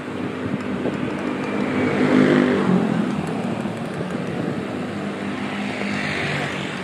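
A motor vehicle's engine passing close by, its hum swelling to a peak about two seconds in and then easing off into steady traffic noise.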